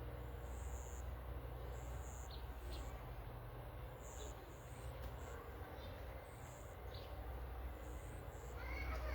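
Outdoor ambience: short high chirps repeating every second or so over a low steady rumble, with no speech.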